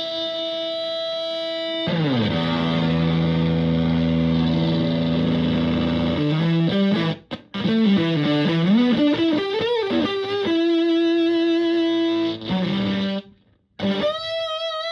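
Electric guitar (a Stratocaster) played through a Zonk Machine fuzz pedal into a Fender Twin–style amp, with a distorted fuzz tone. A held note swoops down about two seconds in into a low sustained note, followed by wavering pitch bends, with two brief cut-offs in the middle and near the end.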